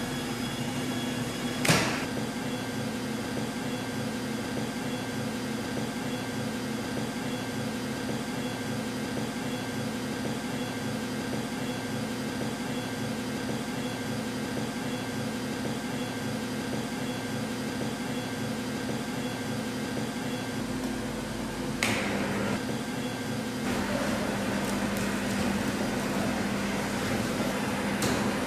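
Blower fan of a BS-F heat shrink tunnel packing machine running with a steady hum. A switch click comes about two seconds in. A second click comes about three-quarters of the way through, after which the hum drops slightly in pitch and the running noise grows louder.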